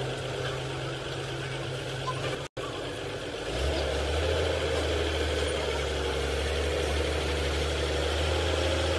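Machinery running steadily with a low hum. The sound cuts out for an instant about two and a half seconds in, and a second later a deeper, louder hum takes over.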